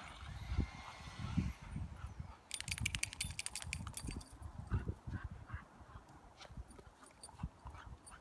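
Dogs romping in snow: irregular low thuds of steps and movement, with a patch of crisp crunching and crackling from about two and a half to four seconds in.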